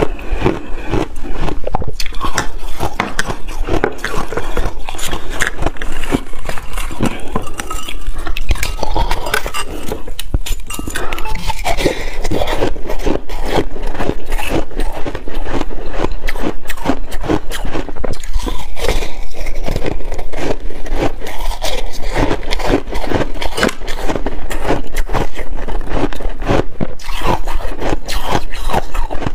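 Frozen shaved ice crackling, crunching and scraping against a metal spoon, close to the microphone, as a dense run of small sharp crackles.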